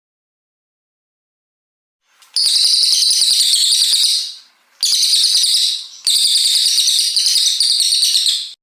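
Cililin coklat (brown cililin) songbird singing long, high, rapid chattering phrases. Three long phrases start about two seconds in, with short gaps between them, and the last one cuts off abruptly.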